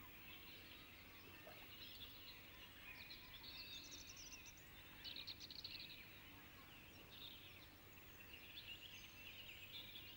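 Faint birdsong from several birds over quiet outdoor background, with a slightly louder run of chirps about five seconds in.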